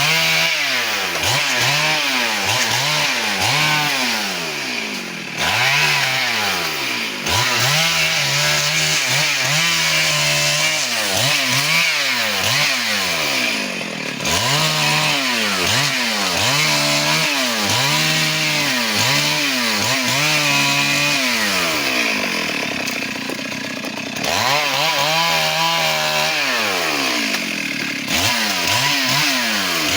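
Chainsaw cutting teak wood, its engine revving up and dropping back again and again, about once a second. A couple of times it sags slowly for a few seconds, as if slowing in the cut, then picks up again.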